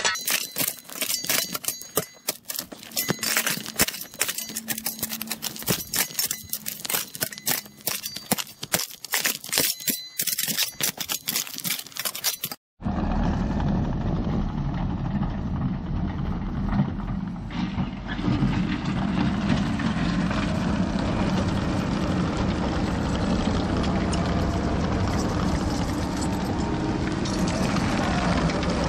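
A steel shovel scraping and clinking against rocks as it digs into stony ground, in many quick sharp strokes. Nearly halfway through, after a brief break, this gives way to the steady engine noise of a Case TV450 compact track loader running under load as its bucket pushes dirt and rock onto a pile.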